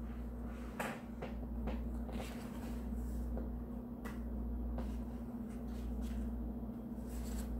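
Picture book being handled, with quiet paper rustling as pages are turned and a few light clicks and taps, over a steady low hum.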